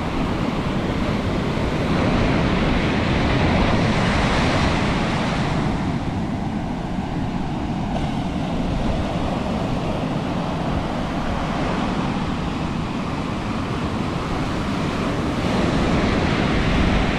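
Ocean surf breaking on a beach: a continuous rushing wash that swells as waves break, about three seconds in and again near the end.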